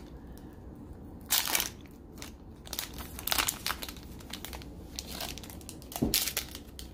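Foil wrapper of a Pokémon trading-card booster pack crinkling as it is handled, in irregular crackles with louder ones about a second in, around the middle and near the end.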